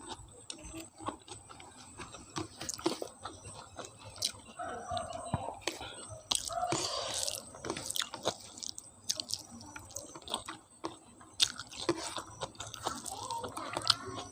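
Close-miked chewing of a rice-and-curry meal: irregular wet smacks, clicks and occasional crunches of a person eating.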